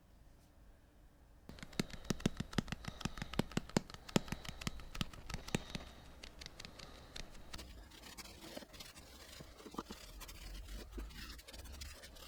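Rapid scraping strokes on a small metal part of a mechanical calculator being cleaned by hand, about five strokes a second, starting about a second and a half in; after a few seconds they give way to softer, irregular scraping and handling.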